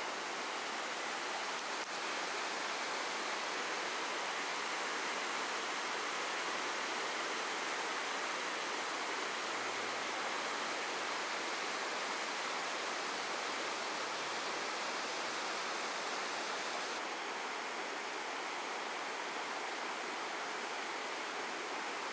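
Steady, even rushing noise of water with no distinct drops or splashes; the highest part of the hiss falls away slightly about three-quarters of the way through.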